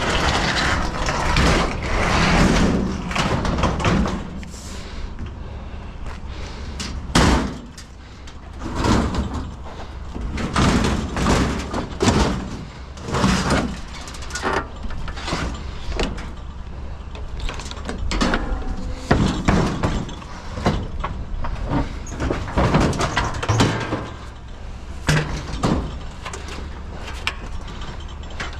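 Metal household appliances being shifted and loaded onto a trailer: irregular bangs, knocks and scrapes of sheet-metal panels.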